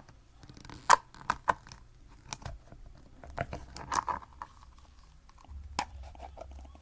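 Small fidget toys being handled and packed into a container: an irregular run of sharp clicks and clatters with rustling, the loudest click about a second in.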